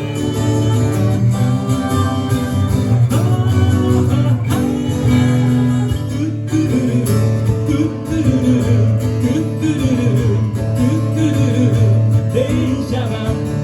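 Live band playing an instrumental passage between sung verses, led by acoustic guitar, with a wavering melody line over it in the second half.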